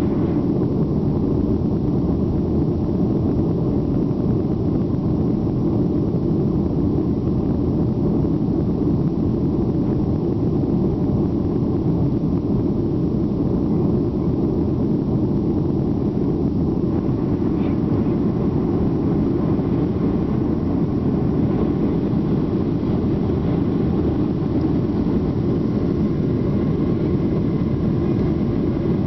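Cabin noise of a Boeing 737-800 climbing out, its two CFM56-7B turbofans and the rushing air making a steady low rumble, with a little more hiss from about seventeen seconds in.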